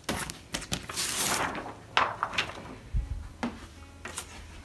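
Crinkly rustling and crackling of a plastic sheet as a sticky cutting mat is handled and pulled free, with a few sharp clicks and taps, the loudest rustle about a second in.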